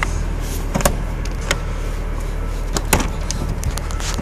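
Steady low hum of shop machinery with scattered sharp clicks and knocks of metal being handled, the loudest a little under three seconds in.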